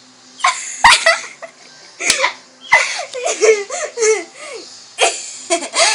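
Girls laughing in repeated bursts of giggling.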